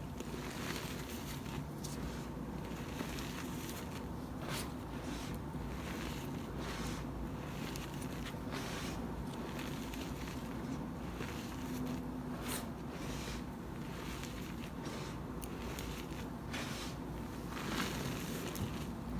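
Gym chalk crunching and crumbling in the hands close to the microphone: a gritty crackle with sharper cracks at irregular moments, about one or two a second.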